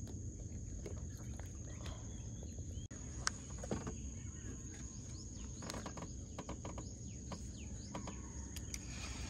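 Insects buzzing in one steady, high-pitched drone over a low rumble of open-air background noise, with scattered small clicks and a sharper knock about three seconds in.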